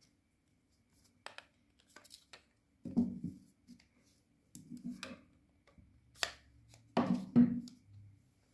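Hard plastic pipe fittings being handled: sharp clicks and knocks with short bursts of scraping as black plastic coupling nuts are slid onto green plastic pipes and set down on paper.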